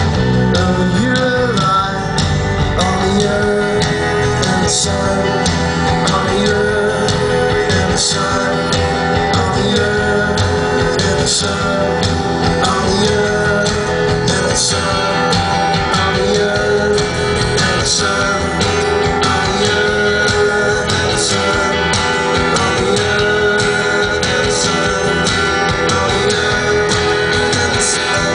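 Live band playing a song through a PA: electric guitars, bass, drum kit with cymbals and keyboard, running steadily.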